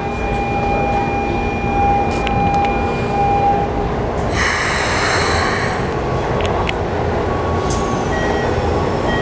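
Keikyu New 1000 series train standing at a platform with its doors open, its onboard equipment giving a steady hum over low rumble. A loud hiss lasts about a second and a half near the middle, and short steady tones sound near the start and again near the end.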